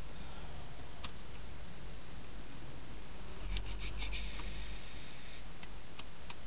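Baseball trading cards being handled and slid against one another, with a brief rustle about three and a half seconds in and a few faint clicks, over a steady background noise.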